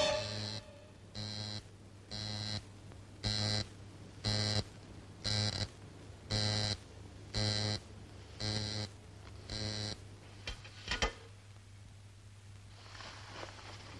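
Electric alarm buzzer sounding in short buzzes about once a second, nine times, followed by a couple of sharp clicks shortly after it stops.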